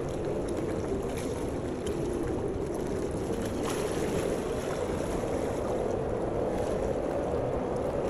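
A steady, even rushing noise, with no music or speech.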